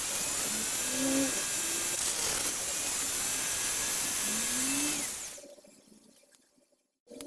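High-speed rotary tool on a flexible shaft, its thin cutting disc whirring as it cuts an opening in a plate, with small shifts in pitch as the load changes. About five seconds in the tool is switched off and winds down to near silence.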